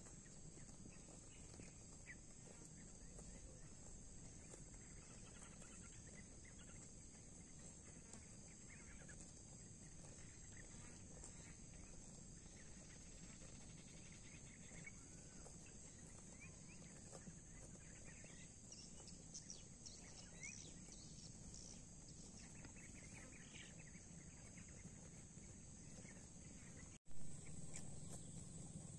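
Faint rural field ambience: a steady high-pitched insect drone with scattered faint bird chirps. A single short bump near the end.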